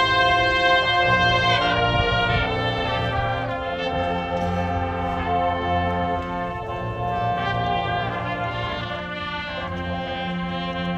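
Marching band brass section playing held chords over low brass bass notes, the harmony shifting every second or so and the volume easing down gradually.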